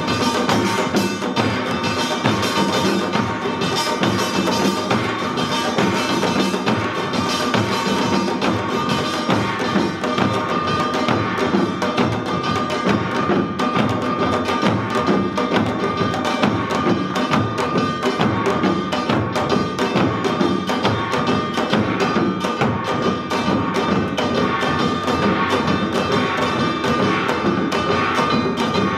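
Samul nori percussion ensemble of Korean janggu hourglass drums playing a fast, dense, driving rhythm. A steady metallic ringing tone sits over the drumming.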